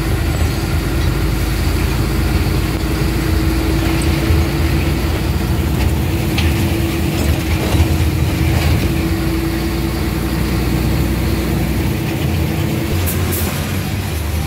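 Engine and road noise heard from inside the cabin of a moving vehicle: a steady low rumble with a steady hum running through it that fades near the end.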